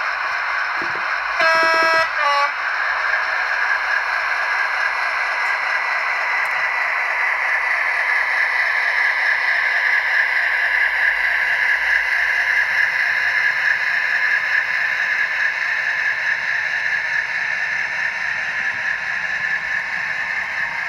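Hornby Class 56 model locomotive's DCC sound decoder, heard through its small onboard speaker. A two-tone horn sounds about a second and a half in, a longer note then a brief second one. It is followed by the recorded Class 56 diesel engine running under load as the locomotive pulls away with its train, the engine sound swelling a little around ten seconds in.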